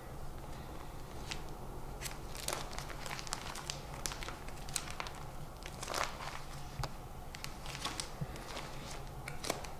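Clear plastic sheet-protector pages of a ring binder crinkling and rustling as they are handled and turned, with scattered sharp crackles.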